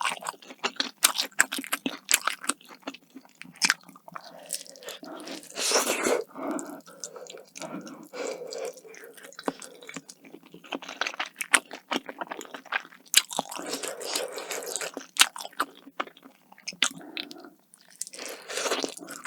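Close-miked ASMR eating sounds: a person chewing and biting food, with repeated crisp crunches and wet mouth clicks in an irregular rhythm.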